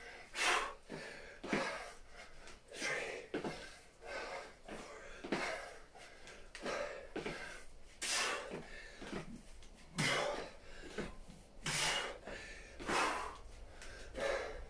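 A man's hard breathing while doing double-arm kettlebell swings: a short, noisy exhale with each swing, roughly every second or so.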